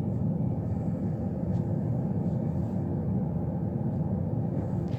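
Steady low rumble of background noise with a few faint clicks from a Rubik's Cube being turned by hand.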